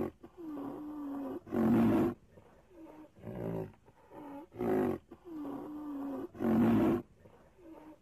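Rhinoceros calls. A short grunt-like call, a held call about a second long and a louder call follow one another, and the whole sequence comes round again about every five seconds.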